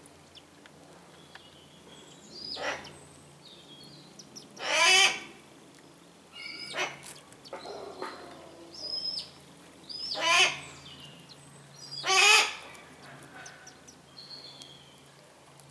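Harris hawks calling at the nest: four loud, drawn-out, wavering calls of about a second each, with shorter, softer calls between them.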